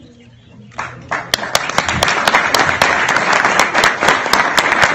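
Audience applauding: it starts about a second in and quickly builds to loud, steady clapping from many hands.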